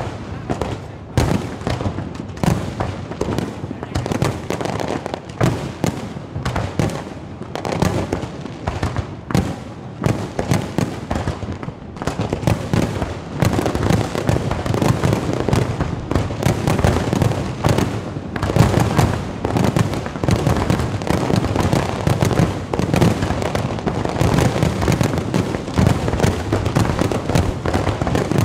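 Aerial fireworks shells exploding in a continuous barrage of bangs, which grows denser and louder about halfway through.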